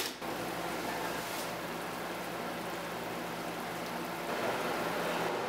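Steady hiss of hot food cooking on a kitchen range, with a faint low hum underneath; it grows a little louder about four seconds in.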